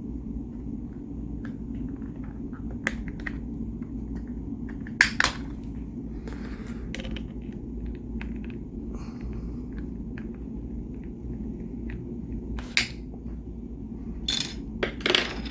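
Small screwdriver prying plastic button covers off a steering wheel: scattered light clicks and a few sharper snaps, over a steady low hum.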